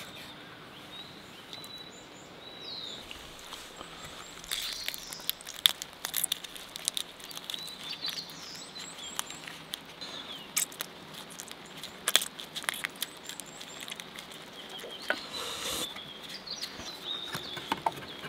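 Scattered clicks and scrapes of a wooden spoon in a metal mess tin as rice is mixed with soy-marinated crab, with birds chirping.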